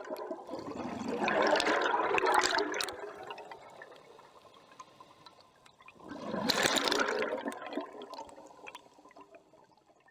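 Rushing, splashing water in two surges, one about a second in and another about six seconds in, each dying away over a couple of seconds.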